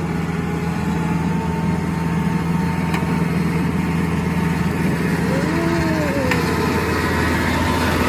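Kubota DC-70 Pro rice combine harvester's diesel engine running steadily. About five seconds in, a short rising-then-falling call rises above it.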